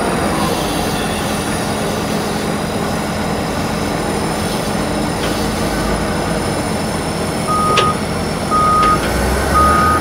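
Volvo wheel loader's diesel engine running steadily while loading straw into a feed mixer wagon. Near the end its reversing alarm sounds three short beeps about a second apart.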